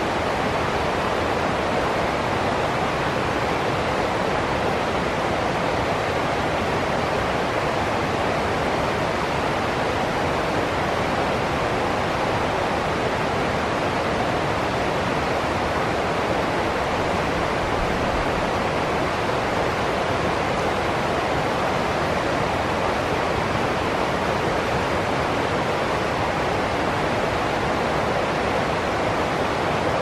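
Rocky stream rushing over small cascades and rapids: a steady, even rush of water with no breaks or changes.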